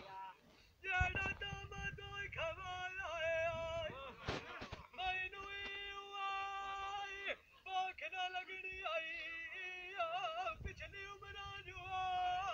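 A man singing Punjabi dholay folk verses unaccompanied, holding long notes with a wavering, ornamented pitch and pausing briefly between phrases. A low thump sounds about a second in.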